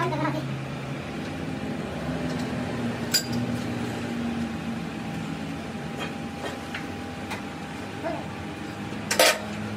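Metal clinks of a chuck key working the jaws of a lathe chuck that holds a cast differential housing, loosening it to free the housing. There are a few sharp clicks, then a louder clink about nine seconds in, over a steady workshop hum.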